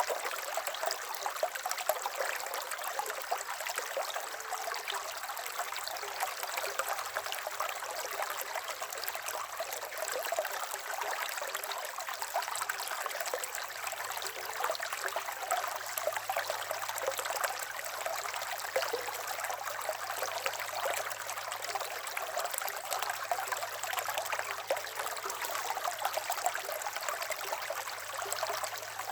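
River water flowing steadily, a continuous trickling rush of running water.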